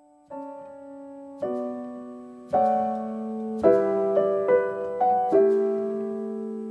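Slow, gentle piano music: notes and chords struck about once a second, each left to ring and fade, with a few quicker notes around the middle before a last chord rings out.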